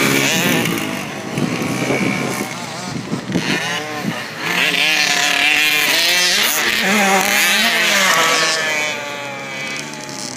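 KTM 50cc two-stroke dirt bike engine revving up and down as it is ridden, its pitch rising and falling with the throttle. It is loudest in the middle and falls off near the end as the bike pulls away.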